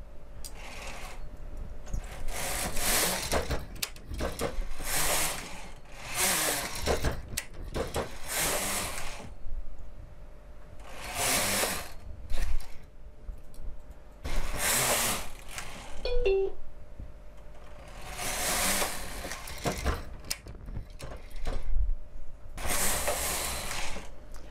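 Carriage of a single-bed domestic knitting machine being run across the needle bed to knit rows: about nine rasping, rattling passes of roughly a second each, spaced two to four seconds apart.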